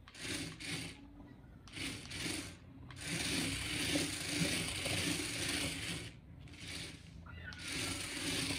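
Toy RC stunt car's small electric motors whirring and its wheels rattling as it drives in several bursts, the longest lasting about three seconds.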